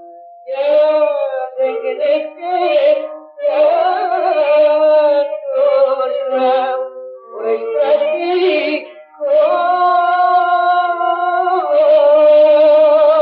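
Old 78 rpm gramophone recording of a Greek klephtic song: a male singer in slow, wavering phrases with clarinet, then a longer held note near the end. The sound is narrow, with nothing above the upper mid range.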